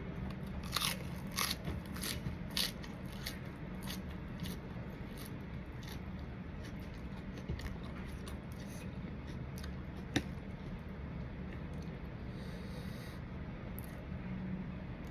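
A person eating green papaya salad close to the microphone: several crisp crunches in the first few seconds, then lighter chewing and mouth sounds, with one sharp click about ten seconds in. A steady low hum runs underneath.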